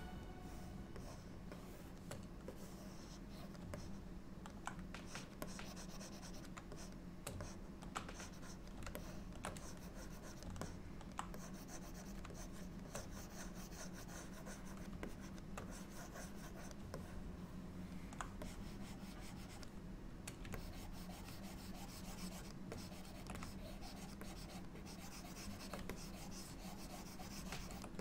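Quiet scratching and rubbing of a pen stylus on a drawing tablet, with scattered small clicks, over a steady low electrical hum.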